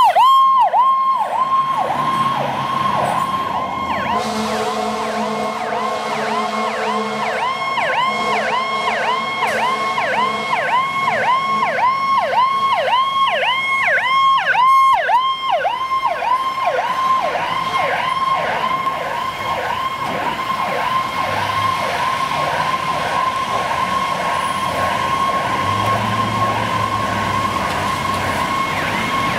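Fire truck sirens sounding in a fast yelp, a rapid whooping pitch cycle of about two or three sweeps a second, fading somewhat after the middle as the trucks move off.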